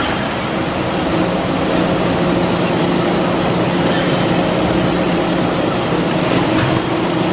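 Kimchi-processing machinery running with a steady hum and broad mechanical noise.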